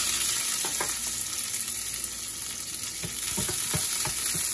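Soaked dried red chilli pieces and ginger slices sizzling in hot oil in a frying pan, a steady loud frying hiss. A wooden spoon stirs them, with a few short knocks against the pan in the second half.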